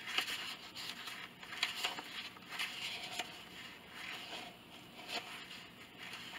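Sheets of printer paper rustling and scraping softly in irregular bursts as pages in a ring binder are leafed through.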